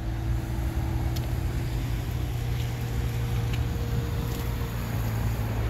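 Steady low hum of a motor vehicle's engine running, with a few faint high ticks.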